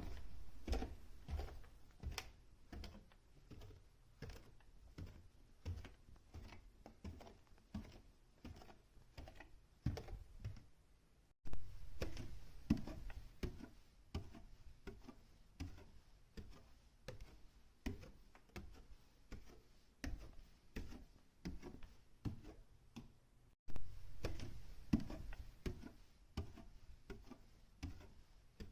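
Footsteps on a staircase: steady steps about two a second, each a soft low thump with a click, broken by short gaps about 11 and 24 seconds in.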